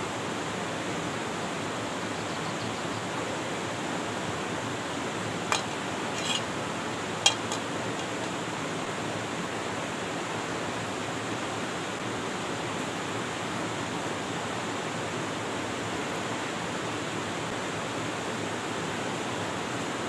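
A steady rushing hiss, with three sharp metal clinks about five to seven seconds in as a steel frying pan is set on a portable gas stove's pot supports.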